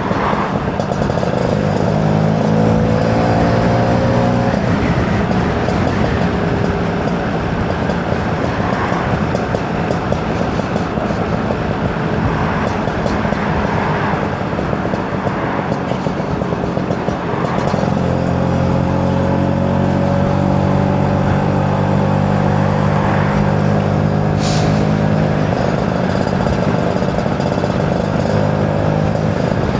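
Two-stroke engine running under way, its note easing off about four seconds in and coming back strong around eighteen seconds, climbing slowly in pitch, over a steady rush of wind. A single sharp click comes near the end.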